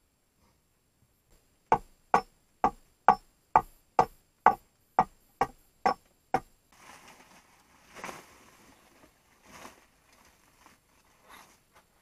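A hammer driving a nail into a wooden slat of a dugout door: eleven sharp, evenly spaced blows, about two a second, stopping after about five seconds. Soft rustling follows.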